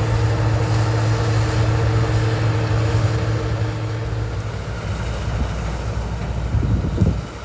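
Diesel engine of harvest machinery running with a steady hum. The hum's pitched tone drops away about four and a half seconds in, leaving a lower rumble, and wind buffets the microphone.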